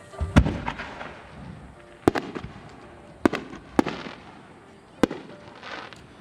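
Aerial fireworks shells bursting: a loud bang about half a second in, then a quick pair of bangs around two seconds, another pair around three, one near four and a last one about five seconds in, each followed by a short crackle and echo.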